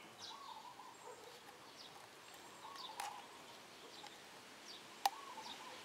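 Faint birds chirping repeatedly in the background, with two sharp small clicks from the plastic oil filter housing being handled.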